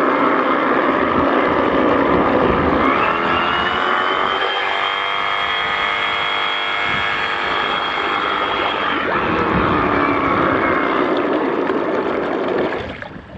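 Flex FX2271 24-volt cordless reciprocating saw running submerged, its blade churning the water into loud splashing. About three seconds in, the motor's whine rises in pitch and holds as the saw is lifted partly clear of the water's drag. It drops back when the saw goes under again, and the saw stops near the end.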